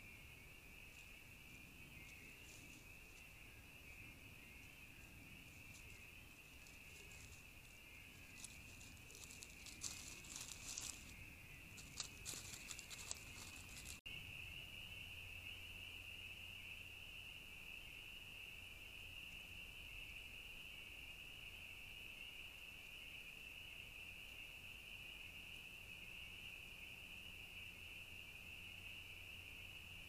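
Raccoon rustling and crackling through dry leaves in a few quick bursts, set against a faint, steady, high-pitched chorus. The sound breaks off abruptly about halfway through, and after that only the chorus goes on.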